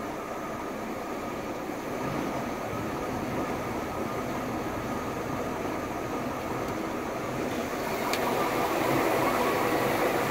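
A parasail boat's inboard engine idling steadily while it warms up, still cold at about 120 degrees with about 30 psi of oil pressure. It grows louder about two seconds in and again near the end, and there is a faint click about eight seconds in.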